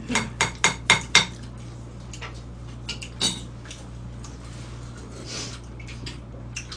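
Spoons and chopsticks clinking against stone bowls and dishes while people eat. There is a quick run of about six sharp clicks in the first second, then occasional lighter taps.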